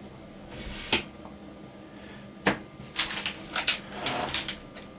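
Trading cards and a foil booster pack being handled: a soft rustle, then scattered sharp clicks and taps that come in a quick run in the second half.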